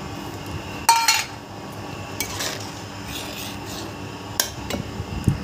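A metal spoon knocking and scraping against a kadhai of simmering curry, with one sharp ringing clink about a second in and a few lighter knocks later.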